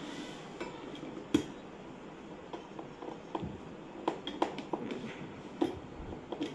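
Scattered sharp clicks and taps of a screwdriver and metal parts as screws are fitted into the metal swivel plate under a bar stool seat, with one louder knock about a second and a half in and a quicker run of clicks later on.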